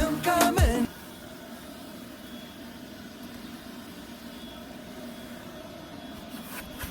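Industrial vacuum cleaner running steadily, a constant motor and suction noise with a faint held hum, after background music cuts off about a second in.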